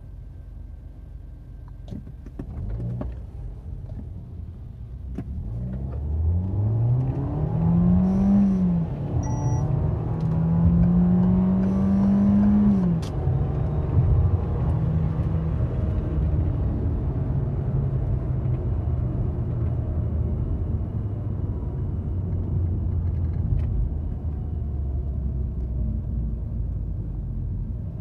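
Citroën C4 Lounge's turbocharged 1.6 THP four-cylinder, run without its paper air filter element, accelerating from a standstill with the automatic gearbox in D: the revs climb, drop at an upshift about nine seconds in, climb again and drop at a second upshift about thirteen seconds in. Each drop brings a short fluttering hiss from the turbo intake (turbo flutter), then the engine settles to a steady cruise.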